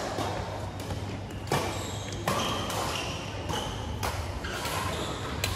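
Badminton rackets striking a shuttlecock during a doubles rally: sharp hits roughly a second apart, each with a short echo from the hall.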